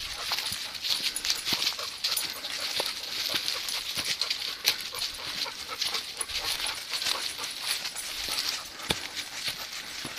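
Dry fallen leaves crunching and rustling under the feet of a person and a dog walking on a leash: a steady run of small crackles and rustles.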